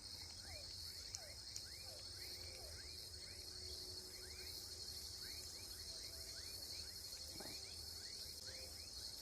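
Evening chorus of crickets and other insects: a steady high shrill chirring, with short sliding chirps repeating about twice a second.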